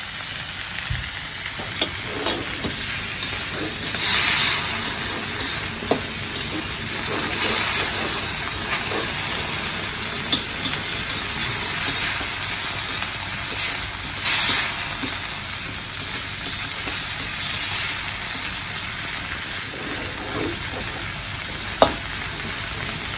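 Cassava shoots sizzling as they are stir-fried in a wok, with a spatula scraping and tapping against the pan. A few louder scrapes come through, and one sharp knock near the end.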